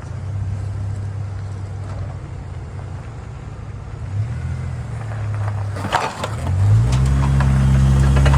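Mercedes-Benz E350's engine running at a steady idle, then revving up, its pitch rising in steps from about four seconds in, with a few sharp clicks around six seconds.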